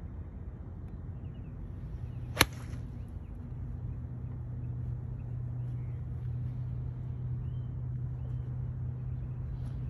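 A Titleist Vokey SM9 wedge striking a golf ball off turf: one sharp crack about two and a half seconds in, with a brief swish around it. A steady low hum runs underneath from a little later on.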